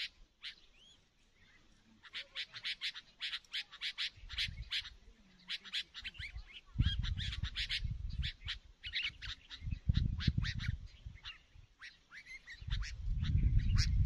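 Bulbuls calling in quick runs of short, sharp chirps. A low rumble comes in briefly twice and then builds near the end, where it becomes the loudest sound.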